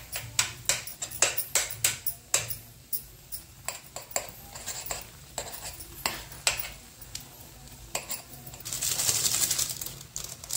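Steel spoon clinking and scraping against a pan in quick, irregular clicks as it breaks up and presses a block of Maggi instant noodles down into simmering water with vegetables. Near the end comes about a second and a half of rustling hiss.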